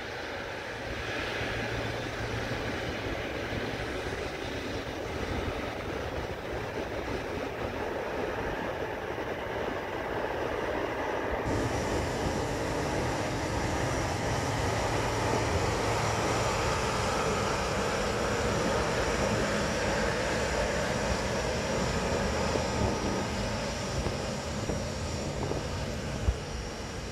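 Boeing 777-300ER's twin GE90-115B turbofan engines running at taxi power, heard from a distance. The engine noise is steady, growing a little louder midway and easing off near the end.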